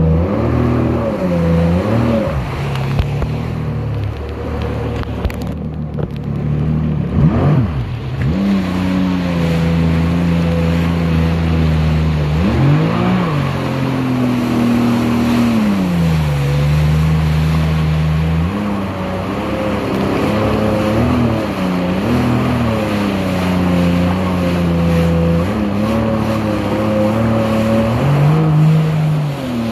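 Jet ski engine running under way, its pitch rising and falling again and again as the throttle is opened and eased, with water rushing under the hull.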